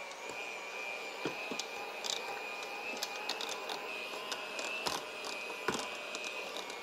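Electric hand mixer with two standard beaters running steadily, whipping mashed potatoes in a stainless steel pot: a high motor whine with the beaters clicking against the side of the pot now and then.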